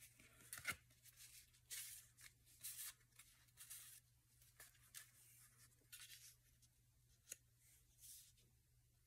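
Faint rustling and light ticks of paper and cardstock pieces being shuffled and picked through by hand, with a sharper click just under a second in and another about seven seconds in.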